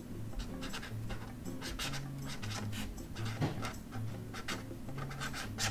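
Felt-tip nib of a Manuscript CalliCreative flexible chisel-nib marker scratching across cartridge paper as a word is written out in a run of short strokes.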